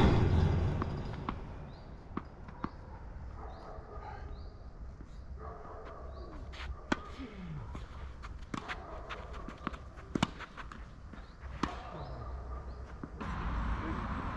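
Tennis ball being hit and bouncing during play: one loud pop right at the start that rings away, then a string of sharper pops about a second or more apart.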